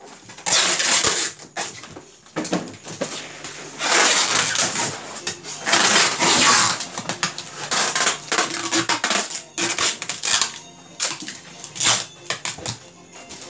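Packing noises: plastic food containers and foam shipping boxes being handled, with irregular scraping and rustling and small knocks. Longer rasping bursts come about half a second in, around four seconds and around six seconds.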